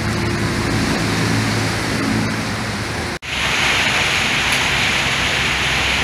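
Steady hiss of heavy rain and flowing floodwater with a low hum under it. After a sudden cut about three seconds in, the rush turns brighter and stronger.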